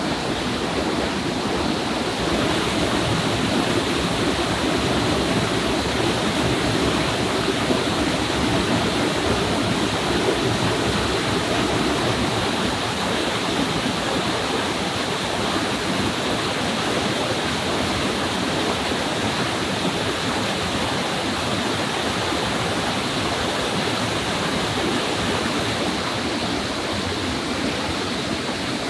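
A small waterfall pouring into a forest stream pool, making a steady rush of water.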